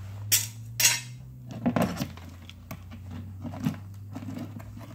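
Clear plastic zip-top freezer bag crinkling and rustling as it is handled and filled with cleaned blue crabs, with two loud sharp crackles in the first second and smaller crackles after. A steady low hum runs underneath.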